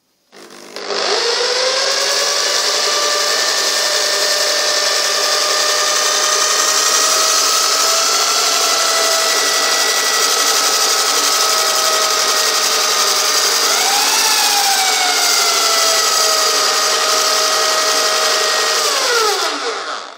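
Bosch PSB 500 RE electric drill, clamped in a homemade jig, spinning a sanding drum while a plane iron is ground against it to sharpen it. The motor whine spins up and runs steady under a grinding hiss, its pitch jumps and eases back down about two-thirds of the way through, and it winds down as it is switched off near the end.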